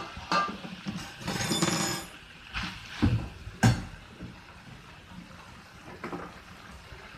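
Metal spatula clinking and scraping against a kadhai while crumbled mawa is moved about, a few sharp knocks and a short rattle in the first four seconds, then fainter scraping.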